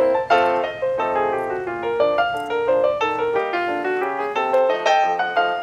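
Background piano music: a quick run of many short notes.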